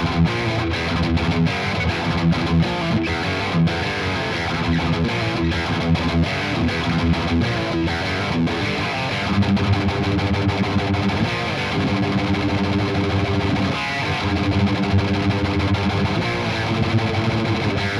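Ibanez S320 electric guitar with DiMarzio pickups, played through distortion in a tone demo: continuous riffs and chords with sharp picked attacks.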